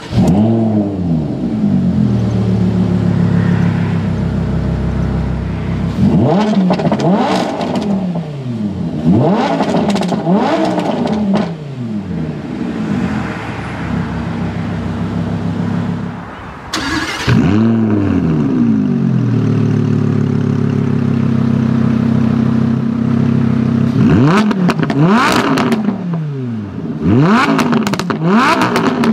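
Lamborghini Huracán LP610-4's 5.2-litre V10 with the optional racing exhaust, started in Sport mode with the exhaust bypass valve open. It flares on start-up, settles into an idle and is blipped several times. About seventeen seconds in it starts again with another flare, followed by more rev blips.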